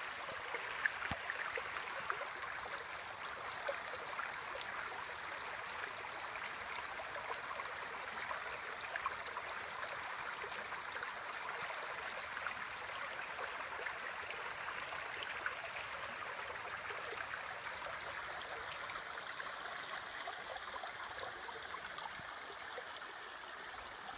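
Shallow creek running over and between rocks: a steady rush of flowing water.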